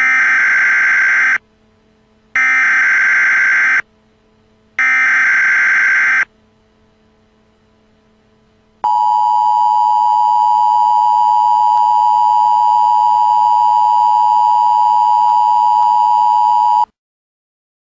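Emergency Alert System signals. Three loud buzzing bursts of the SAME digital header, each about a second and a half long with a second's gap between, announce an alert. About nine seconds in, the steady two-tone EAS attention signal starts, holds for about eight seconds and cuts off suddenly.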